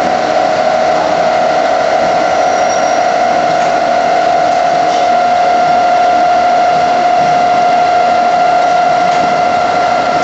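Automatic machine tools running steadily: a continuous machinery hum with a constant mid-pitched whine, and a fainter higher whine joining about halfway through.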